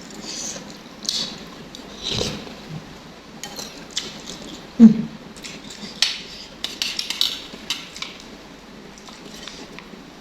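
Eating utensils clicking and scraping against a bowl of noodle soup, in scattered short strokes. One brief, louder low sound comes about five seconds in.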